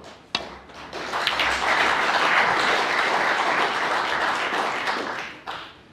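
A sharp click of snooker balls striking, then the audience applauding for about four seconds, dying away near the end.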